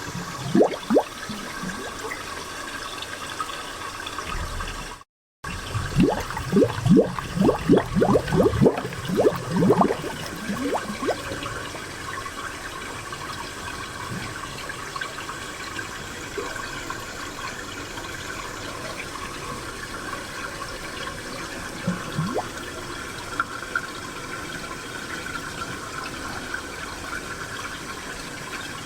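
Spring water running steadily, with bursts of gurgling, bubbling plops near the start and again in a busy run about six to ten seconds in. The sound drops out completely for a split second just after five seconds in.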